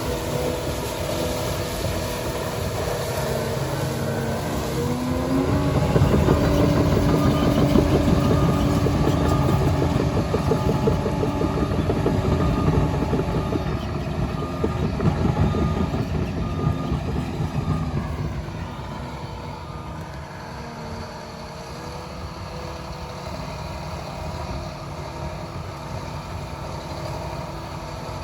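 Liebherr PR 746 crawler dozer's diesel engine running. It revs up about five seconds in and stays at higher revs for around twelve seconds, then drops back to a lower, quieter speed about eighteen seconds in.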